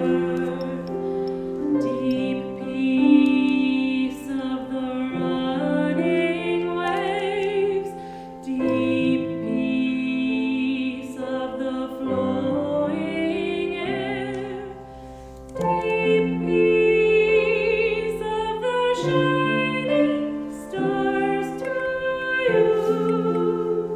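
Choir singing a hymn, several voices holding long notes with vibrato in slow phrases, over a soft instrumental accompaniment.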